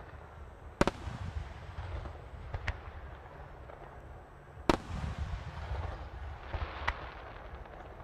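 Starmine of aerial firework shells bursting with sharp booms over a continuous low rumble; the two loudest bangs come about a second in and near five seconds in, with weaker ones between. A brief crackling comes around seven seconds in.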